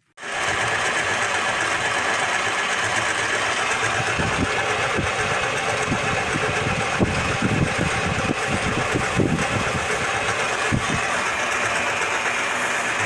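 A machine motor running steadily, starting abruptly, with irregular low knocks through the middle.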